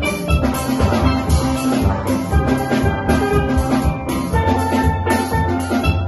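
Steel band playing: steel pans ringing out a melody and chords over yellow barrel bass pans, with a drum kit keeping a steady, driving beat.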